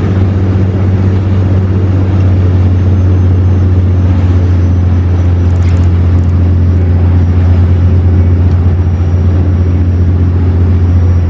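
Boat engine running steadily under way: a loud, constant low drone.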